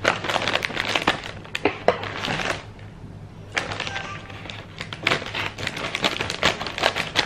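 Crinkling of a plastic cassava-chip bag as it is handled and cut open with scissors. The crackle comes in two spells with a short pause about three seconds in.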